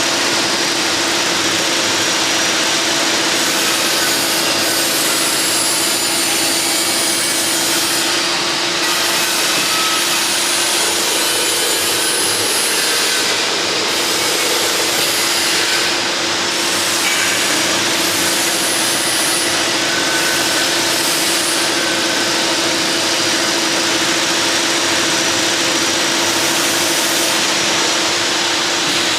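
Mattress tape edge sewing machine running steadily: a continuous mechanical rasping noise over a constant motor hum, with no break.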